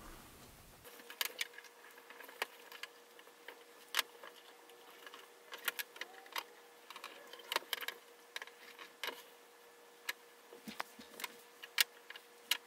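Hornby OO-scale model locomotive running on its track: a steady electric-motor hum that starts just under a second in, with irregular light metallic clicks and ticks from the wheels and track.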